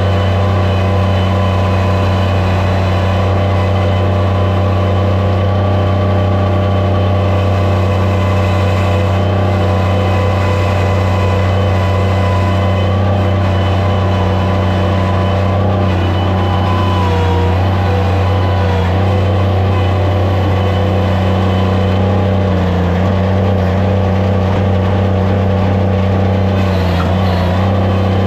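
Skid steer loader's engine running steadily at speed, a loud, even drone whose pitch shifts slightly a little past halfway and again near the end.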